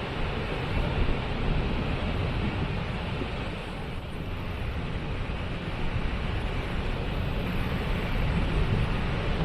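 Waterfall: a steady rush of falling water, heavy and deep.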